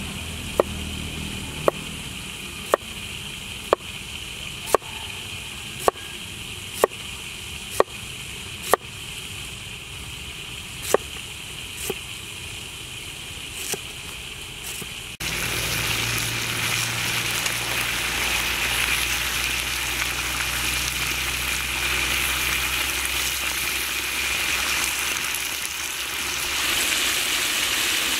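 A knife slicing a cucumber on a wooden cutting board, one sharp knock about once a second, the strokes spacing out toward the middle. About halfway it switches suddenly to pieces of giant trevally deep-frying in oil in a metal wok, a steady sizzle.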